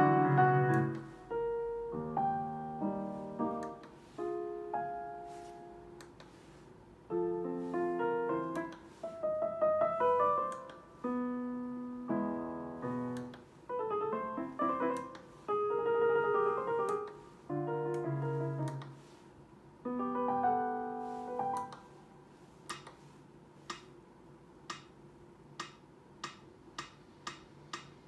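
Korg SP-250 digital piano playing short phrases and chords through its built-in speakers, switched through several voice presets such as piano, organ and strings. From about 22 seconds in, its built-in metronome ticks, the clicks coming faster near the end as the tempo is raised.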